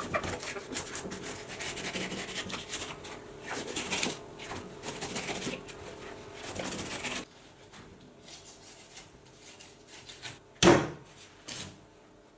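Kitchen food-preparation handling sounds: irregular rubbing and scraping with small clicks for about seven seconds, then quieter, with a sharp knock near the end.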